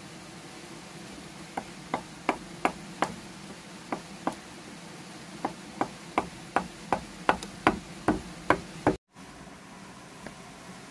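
Hammer striking a steel chisel to cut into a round wooden log: a run of sharp knocks, about two a second, that stops abruptly about nine seconds in.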